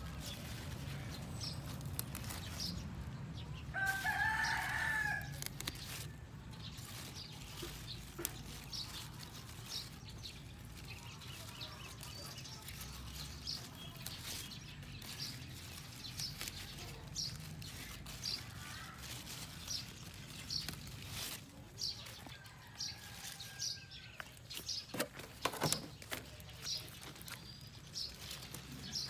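A rooster crows once about four seconds in, with fainter crowing later. Short snaps and rustles come from hands picking red leaf lettuce leaves.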